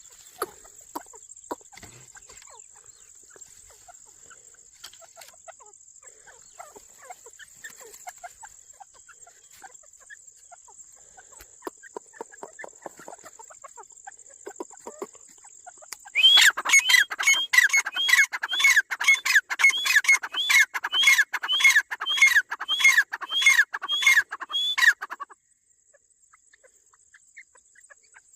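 A bird calling: soft clicks and quiet scattered calls at first, then about halfway through a loud run of rapid repeated calls, about two a second, for some nine seconds before it stops abruptly. A thin steady high-pitched tone runs underneath and cuts out with the calls.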